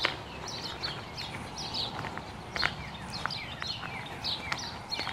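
Birds chirping in the surrounding trees, short high calls in quick irregular succession, with a few sharp crunches of footsteps on a gravel path.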